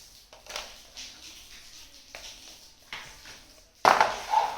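Light taps and clicks of small toy kitchen pieces being handled, then a louder knock and clatter near the end.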